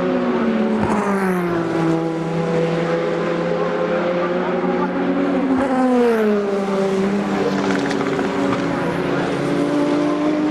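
Several endurance race car engines running at once. Their pitch drops about a second in and again around six seconds, as cars slow and pass, then climbs steadily as they accelerate away.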